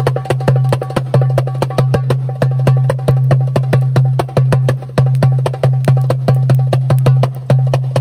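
Darbuka (goblet drum) played by hand in a fast, unbroken rhythm: deep ringing bass strokes under a rapid run of sharp, crisp finger strokes on the rim.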